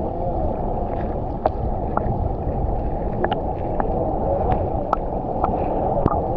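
Waterfall water rushing steadily, with many small sharp splashes and drips scattered through it.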